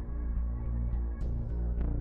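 Background music with a deep, steady bass drone.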